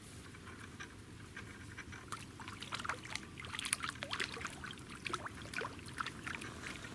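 Water splashing and dripping at the surface: many small splashes and plinking drops, thickest from about two seconds in.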